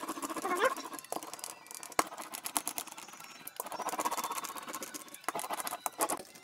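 Small laminating roller rolled back and forth over resin-soaked carbon fibre cloth in a mould, giving a rapid run of clicks and light squeaks.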